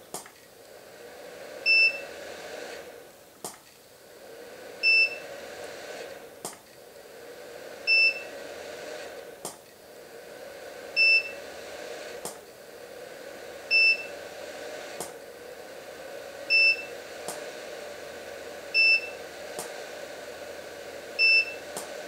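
Studio monolight flashing repeatedly at full power on battery and inverter power. A sharp click of the flash comes about every three seconds, then a hum that builds as the flash recycles, then a short high ready beep once it has recharged.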